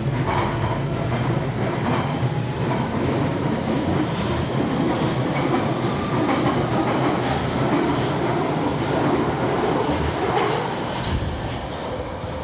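London Underground Central line 1992 Stock train pulling out of the platform and running into the tunnel, its wheels clattering over the rail joints. The sound fades about eleven seconds in as the last car enters the tunnel.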